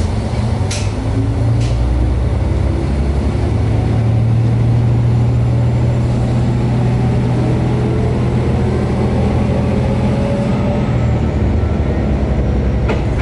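Diesel railcar engine running under load, heard from inside the driver's cab, with a whine rising in pitch over the first several seconds as the train gathers speed. There are two sharp clicks near the start and another near the end.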